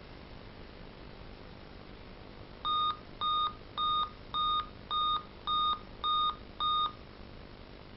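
Dell Inspiron N5010 laptop giving its POST error beep code at power-on: eight short, even beeps of one pitch, about two a second, then a pause before the pattern repeats. The laptop is failing to boot, and eight beeps is Dell's code for a display (LCD/video) failure.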